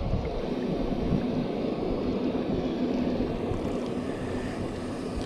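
Steady wind blowing across the microphone, with small wind-driven waves washing against the lake bank.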